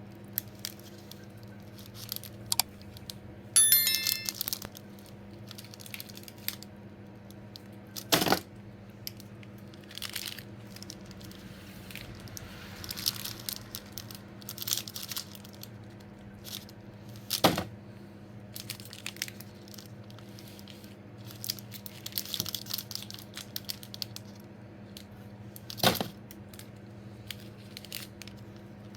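Sweet and chocolate wrappers being handled and torn open: crinkling and tearing of packaging, with three sharp clicks spaced about nine seconds apart and a brief high-pitched ring about four seconds in, over a low steady hum.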